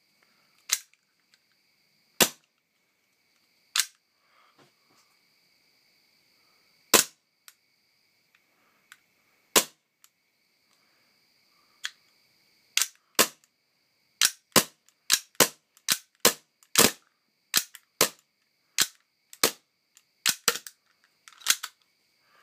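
WE-Tech M&P9 gas blowback airsoft pistol firing, each shot a sharp crack as the slide cycles. The shots are few and irregular at first, then come in a quicker string of about two a second in the second half.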